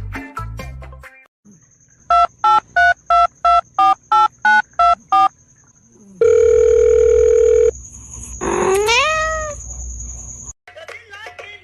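Electronic beeping: a run of about ten short beeps, about three a second, then one long loud steady beep, then a short rising call like an animal's.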